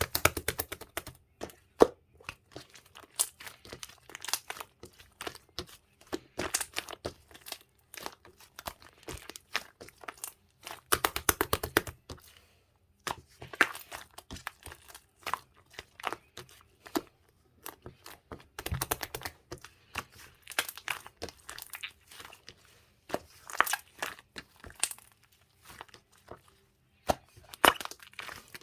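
Hands squishing, stretching and pressing slime, making runs of sticky crackling and popping clicks that come in clusters, densest about eleven seconds in and again near nineteen seconds.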